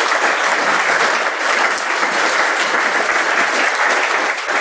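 Audience applauding, a roomful of people clapping steadily.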